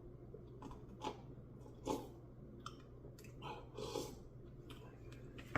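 A person eating melted ice cream with peanut butter cup chunks: a few short, faint chewing and mouth sounds with small clicks, the loudest about two seconds in.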